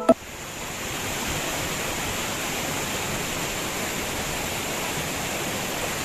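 Shallow stream rushing over rocks: a steady, even hiss of flowing water.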